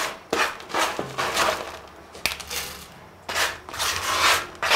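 Handfuls of dried omena (Lake Victoria sardines) scooped from a plastic basket and dropped into an aluminium pot, a dry rustling crunch with each handful, about twice a second.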